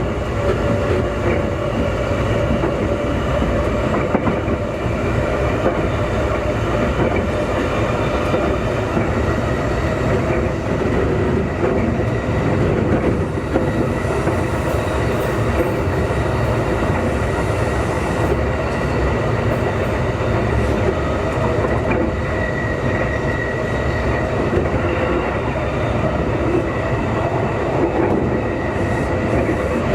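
Steady running sound heard inside a Keikyu 2000-series motor car (Deha 2052) in slow rush-hour running: wheels rumbling on the rails, with a faint steady high whine above it.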